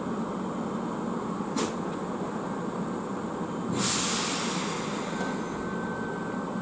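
Ohmi Railway 800 series electric train starting away from a platform, with a steady running noise. A sharp click comes about one and a half seconds in, and a loud hiss of air about four seconds in fades over a second. A thin steady high whine joins near the end.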